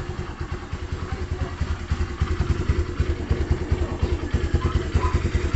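Honda Dio scooter's single-cylinder four-stroke engine idling, a fast, even low pulsing.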